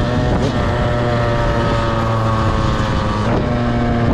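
Yamaha YZ125 two-stroke dirt bike engine running under way at fairly steady revs, its pitch easing slightly, with a brief change in pitch about three seconds in.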